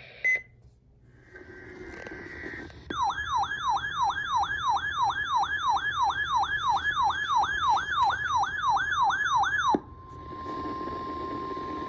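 Broadcast alert tones: a short beep, then an electronic siren-like warble that sweeps down in pitch about two and a half times a second for some seven seconds. It cuts off abruptly into a steady single tone, the 1050 Hz NOAA Weather Radio warning alarm tone.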